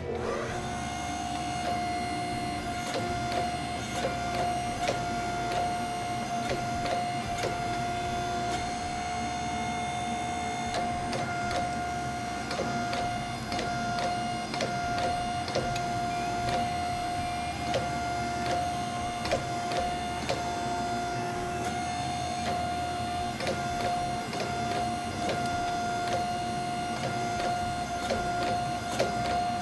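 A 25-ton hydraulic forging press running with a steady whine, with frequent short clicks and knocks as its ram presses a red-hot steel canister billet.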